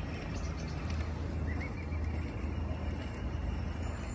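Steady low outdoor background rumble with a constant low hum, and a few faint high chirps about a second and a half in.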